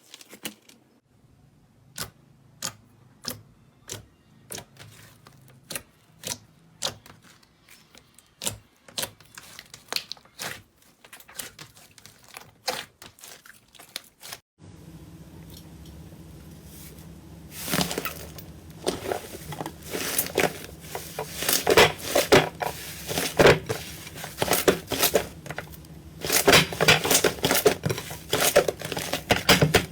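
Slime being squeezed and poked by hand, giving sharp separate pops and clicks about once or twice a second. About halfway through the sound changes abruptly to a louder, denser run of crackling pops.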